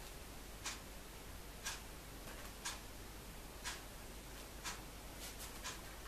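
Clock ticking steadily about once a second, with a few extra clicks in between.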